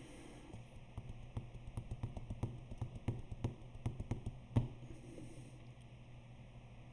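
An irregular run of short light taps or clicks, several a second for about four seconds, the last one the loudest, over a steady low hum.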